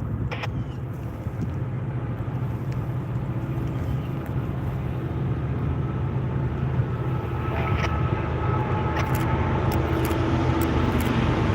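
Diesel locomotive engines running with a low, steady drone that grows gradually louder as the train approaches, with a few sharp clicks in the second half.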